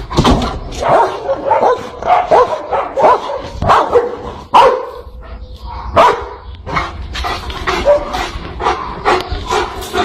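A dog barking and yipping in a long run of short, close-spaced barks.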